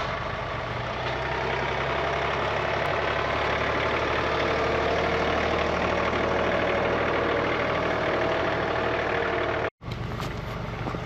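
A vehicle engine running steadily with a low hum. The sound drops out for an instant near the end.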